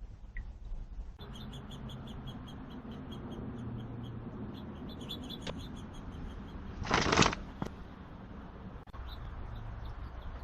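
A short, loud rustling burst about seven seconds in, over a steady background with a low hum and faint, evenly repeated high chirps.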